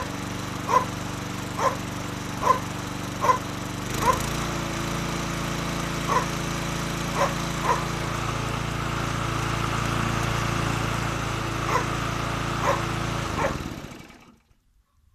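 Bolens petrol mulching lawn mower engine running steadily while mowing grass, with a dog barking about a dozen short barks over it; the barks are the loudest sounds. Near the end everything fades out to silence.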